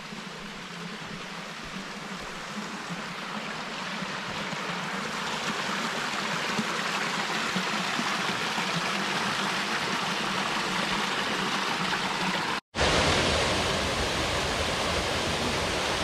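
Woodland stream rushing over rocks, growing slowly louder. After a brief cut about thirteen seconds in comes the louder, deeper rush of a waterfall pouring into a pool.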